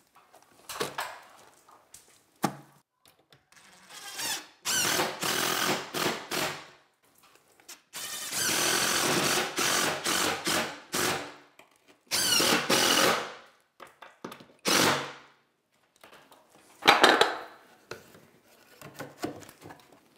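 Cordless drill-driver running in several separate bursts, the longest about three seconds, as it drives screws that fasten the vent's mounting into the ceiling opening.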